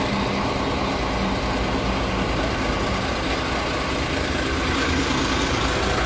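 Heavy diesel engine idling steadily: an even low rumble with a faint hum that fades about halfway through.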